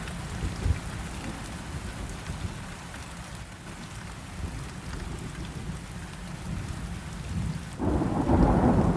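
Steady rain with low rumbling thunder; a louder burst of thunder breaks in near the end.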